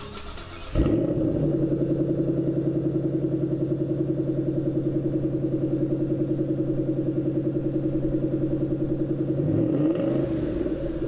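The supercharged 5.8-litre V8 of a 2014 Ford Mustang Shelby GT500 starting from cold: it catches suddenly about a second in, then settles into a steady cold-start idle with an even, pulsing exhaust beat. Near the end the engine speed dips and picks back up.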